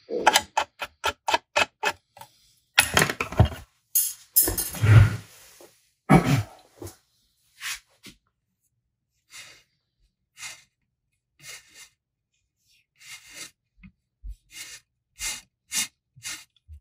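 Handling noise from winding thread by hand onto a wooden dowel on a rod wrapper. It starts with a quick run of clicks, about four a second, then a few louder rubbing, scraping sounds, then scattered clicks.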